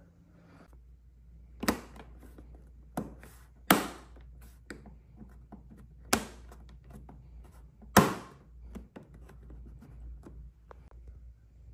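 Five sharp knocks and clacks on hard plastic, the loudest about four and eight seconds in, with smaller clicks between: a hand pressing and knocking on the Can-Am Spyder's plastic fairing panel beside the speaker grille.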